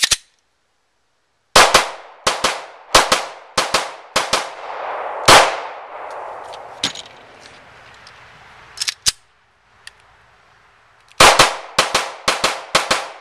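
Magnum Research MR9 9mm pistol being fired, an echo trailing the shots. About eight shots come at a steady pace a second and a half in, then two more just before the middle. A faster string of about eight shots starts near the end.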